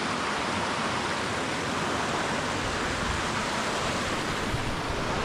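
Rain-swollen mountain creek rushing over rocks at a stream crossing, a steady, even rush of water.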